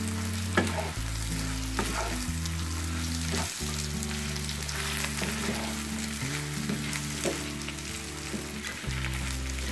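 Beef tongue slices and spice paste sizzling in a wok, stirred and turned with a wooden spatula that scrapes and knocks against the pan. Soft background music with held low notes plays underneath.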